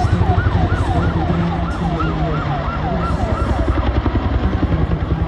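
A Chinook firefighting helicopter's rapid, yelping warning siren, about three or four rising-and-falling sweeps a second, sounding over the steady beat of its twin rotors and dying away about four seconds in. The siren warns ground crews of an imminent water drop.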